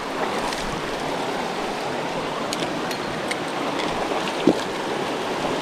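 Creek water rushing steadily, with one short sharp sound about four and a half seconds in.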